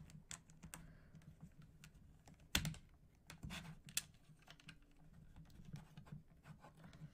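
Small plastic Mega Bloks building pieces clicking and clattering as hands pick through a loose pile: a run of light, irregular clicks, the sharpest about two and a half seconds in.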